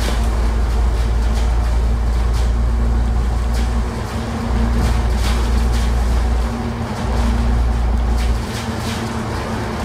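Alexander Dennis Enviro500 MMC double-decker bus under way, heard from inside the bus: a steady low engine and drivetrain rumble with a hum over it. The rumble dips briefly about four seconds and about seven seconds in and eases off near the end, with a few short rattles along the way.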